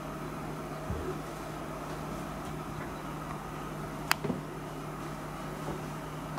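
Steady background hum with a constant low tone, broken by one sharp click about four seconds in and a few faint soft knocks.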